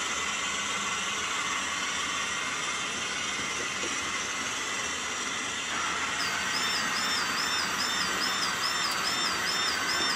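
Model railway trains running on the layout: a steady whirr of small electric motors and wheels on the track. About six seconds in, a high electronic tone starts warbling up and down about three times a second.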